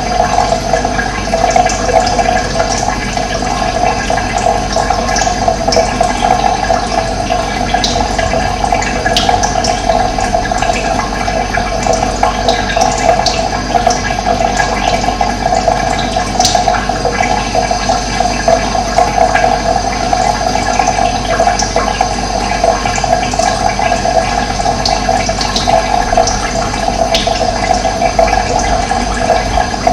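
Running water, a steady loud rush, with occasional short high bird chirps over it.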